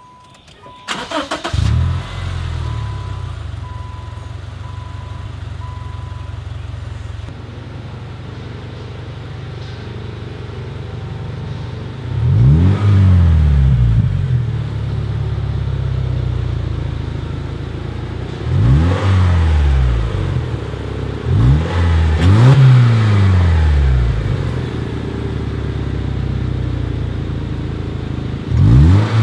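A 2011 Subaru Legacy 2.5i's flat-four engine, breathing through aftermarket dual Magnaflow mufflers, cranks and catches about a second in, then idles. From about twelve seconds on it is blipped five times, each rev rising and dropping back to idle, two of them close together.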